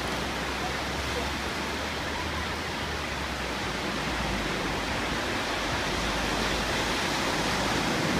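Steady rush of surf breaking on a sandy beach, with wind rumbling on the microphone.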